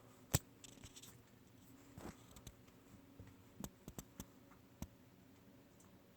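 Faint, scattered sharp clicks, about eight in all, the loudest about a third of a second in and a small cluster past the middle, over a low steady hum.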